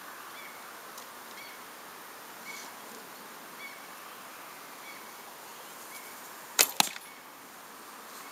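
A Falco Storm traditional bow shooting an arrow: one sharp double snap about six and a half seconds in as the string is released and slaps home.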